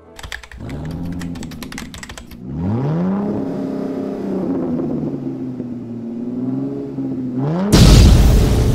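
A rapid clatter for the first two seconds or so. Then a vehicle engine catches, its revs rising and settling to a steady run. Near the end it revs up again into a loud burst of noise, the loudest moment.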